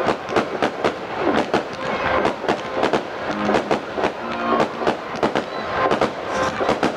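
Fireworks going off in a rapid, irregular string of sharp bangs and crackles, several a second, with faint whistling tones between them.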